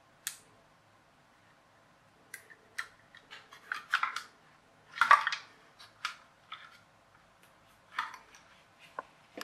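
Hands handling a plastic toy RC car chassis and its circuit board: scattered clicks, taps and light knocks of plastic, loudest in a cluster about four to five seconds in.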